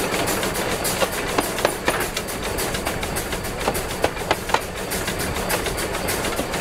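Steam locomotive 'Spreewald' running, heard close to its driving wheels and running gear: a steady clatter with many sharp, irregular clicks and knocks.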